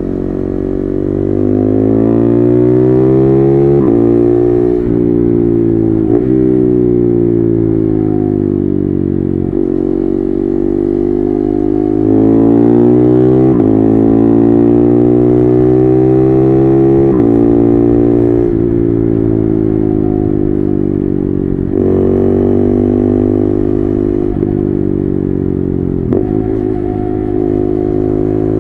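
KTM 390 Duke's single-cylinder engine through an SC-Project exhaust with no dB killer, pulling hard through the gears. The pitch climbs over a few seconds and drops sharply at each upshift, several times, with stretches where the engine winds down as the throttle is eased.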